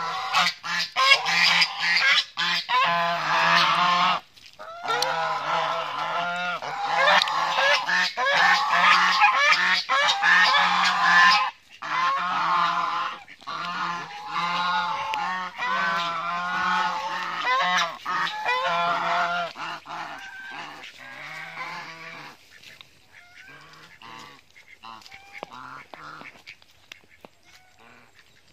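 A flock of white domestic geese honking loudly, a dense, almost continuous chorus of calls with a couple of brief breaks, thinning out to a few fainter honks over the last several seconds.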